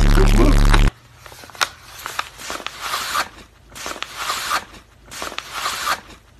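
A very loud, distorted blast with a deep hum cuts off about a second in. Then a paper mailer envelope crinkles and rustles in several short bursts as it is handled.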